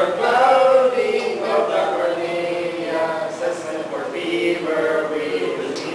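A small group of voices, three men and a woman, chanting together in unison from printed sheets, with drawn-out held notes.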